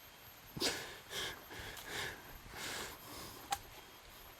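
A hiker's heavy breathing, about four soft breaths in a row, with a single sharp click about three and a half seconds in.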